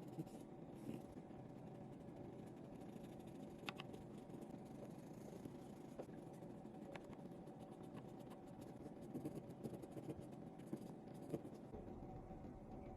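Faint clicks and light scratching of small repair tools on a phone, a few scattered ticks with a cluster near the end, over a steady low hum.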